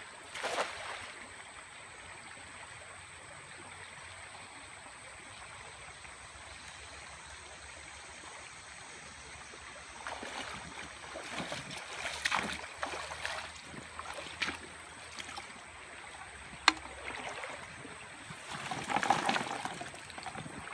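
A bait cast net lands with a splash on a shallow stream about half a second in, over the steady sound of flowing water. From about ten seconds in the net is hauled back through the water with repeated splashing and sloshing, with one sharp click, and near the end the wet net full of minnows is lowered into a plastic bucket.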